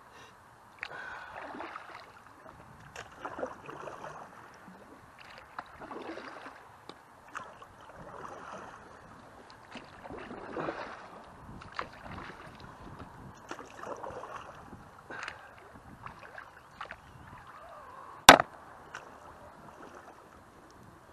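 Canoe paddle strokes through river water from an inflatable canoe: a swishing, splashing swell about every two to two and a half seconds, with small drips and light knocks between them. A single sharp knock near the end is the loudest sound.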